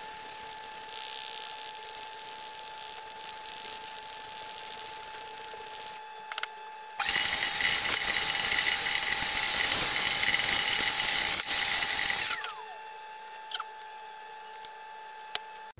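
Shop vacuum running with a steady whine while it cleans char dust off a burnt-wood board. From about 7 s to 12 s the hose nozzle works over the board and a loud rushing suction noise comes in, then drops back to the steady whine.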